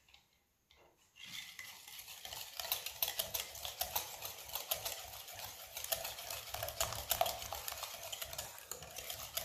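Wire whisk beating a thin egg-and-sugar cake batter by hand in a glass bowl: rapid, steady clicking of the wires against the glass over the swish of the liquid. It starts about a second in after a short pause.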